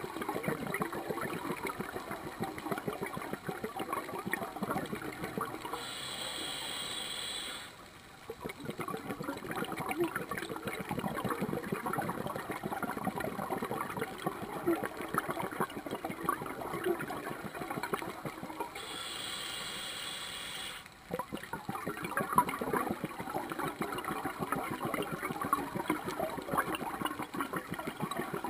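Scuba diver breathing through a regulator: long stretches of crackling exhaled bubbles, broken twice by a steady hiss of an inhale lasting about a second and a half, once about a quarter of the way in and again about two-thirds through.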